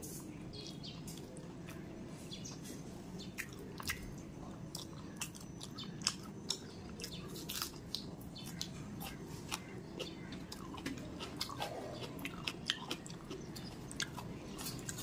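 Close-miked chewing of rice eaten by hand, with many sharp wet mouth clicks and lip smacks scattered irregularly throughout.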